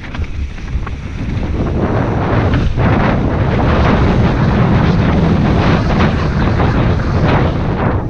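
Wind rushing over a helmet-mounted action camera's microphone as a mountain bike runs fast down a dirt trail, with tyre rumble and short knocks from the rough ground. It gets louder about two seconds in.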